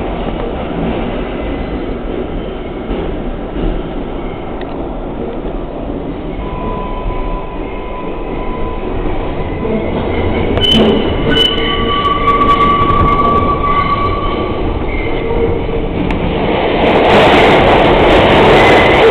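R142A subway train running through the tight City Hall loop curve: steady rail rumble, with the wheels squealing in one thin high tone and then, from about ten seconds in, several high tones at once, the flanges grinding against the curved rail. The running noise grows louder near the end.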